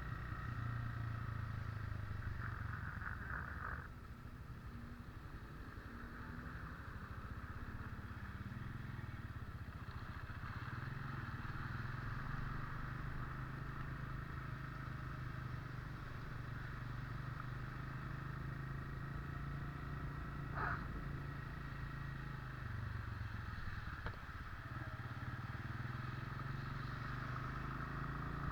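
A vehicle engine running steadily on the move, its pitch shifting a little now and then, over a steady hiss, with a couple of brief clicks late on.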